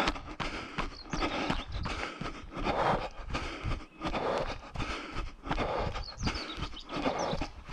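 Running footsteps on a dirt track, a steady beat of about three strides a second.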